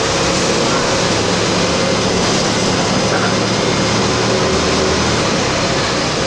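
Single-deck city bus heard from inside the passenger cabin while it runs: a steady engine hum with constant road and cabin noise.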